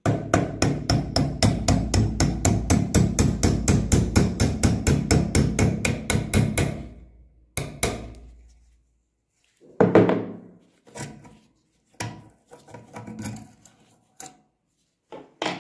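A hammer taps a steel punch in quick, even strokes, about five a second, driving the pivot pin out of a rusty air gun's trigger lever mount. The tapping stops after about six seconds. Two more single taps and a few scattered metal knocks follow as the loosened lever and spring are handled.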